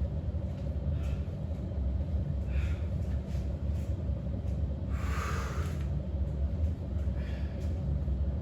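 A man breathing hard between exercise sets, with four breathy exhales about two to three seconds apart, the third and loudest a second-long blow, over a steady low rumble.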